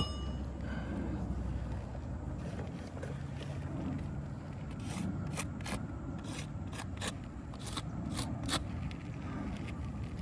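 Light scraping and rubbing on asphalt roof shingles, with a few small sharp ticks about halfway through, over a steady low rumble.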